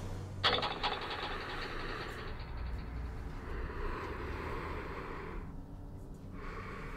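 A steady rushing hiss that starts suddenly about half a second in, runs about five seconds, stops, and comes back briefly near the end.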